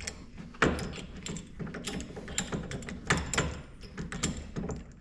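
Irregular clicks, knocks and clatter of hand work on wooden face-frame cabinets and a cabinet clamp. Sharp knocks come about half a second in and again about three seconds in.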